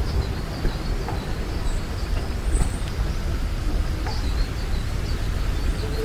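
A steady low rumble, with small birds chirping faintly in short notes above it.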